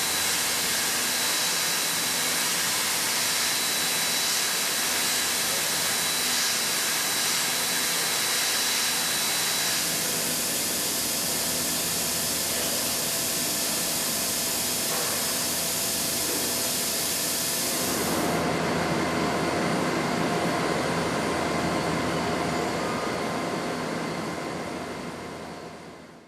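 YASDA five-axis CNC machining center milling hardened HPM31 steel (58 HRC) with a ball-nose end mill: a steady high whine over a loud hiss. About eighteen seconds in, the hiss drops and the lower machine noise gets louder. The sound fades out at the end.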